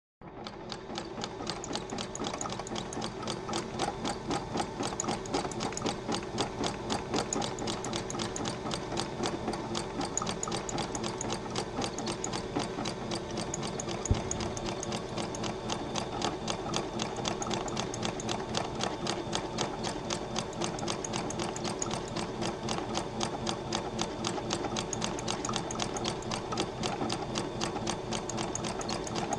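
Computerised electric sewing machine running steadily, its needle stitching through needlepoint canvas for thread painting: a fast, even ticking of stitches. A single low knock about halfway through.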